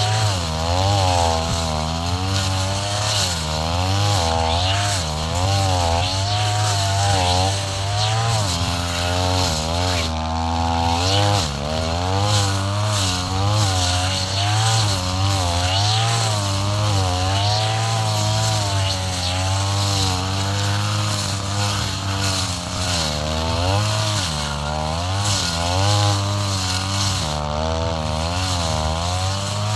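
Two-stroke brush cutter running hard through tall grass, its engine pitch rising and falling about once a second.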